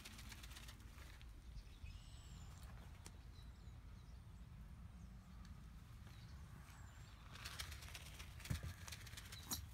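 A few high, sliding chirps of small birds over a low steady rumble. About three-quarters of the way through, a short burst of rustling and crackles as fly predators are sprinkled by hand onto the straw bedding.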